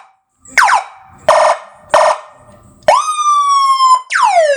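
A multi-tone electronic horn cycling through its siren sounds: a quick falling sweep, two short buzzy blasts, a loud tone that jumps up and then slowly sags for about a second, and a falling wail near the end.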